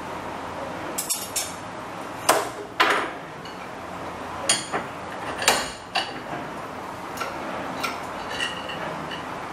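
Irregular sharp metal clinks and taps, some ringing briefly, mixed with a few short scraping strokes, as a small metal hinge pin clamped in a bench vise is worked with hand tools.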